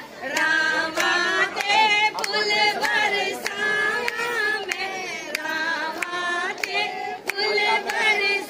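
A group of women singing a Hindi devotional wedding song together, with sharp beats keeping time about twice a second.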